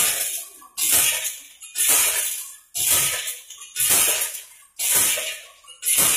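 Handloom working in a steady rhythm: a sharp wooden clack about once a second, six strokes in all, as the shuttle is thrown and the batten beats the weft.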